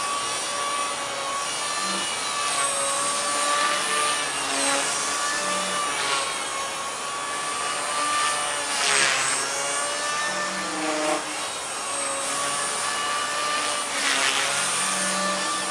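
Gaui Hurricane EP200 v2 electric RC helicopter in flight: a steady high whine with the rotor's whoosh, its pitch wavering slightly as the rotor speed shifts. The whoosh swells briefly about nine seconds in and again near the end.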